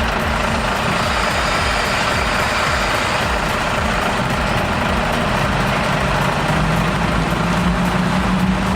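Heavy vehicle engine running steadily, its pitch rising a little and getting stronger near the end.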